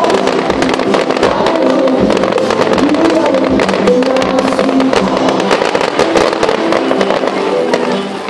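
Fireworks crackling in a dense stream of rapid sharp cracks and pops, over music with sustained notes. The crackle thins out near the end.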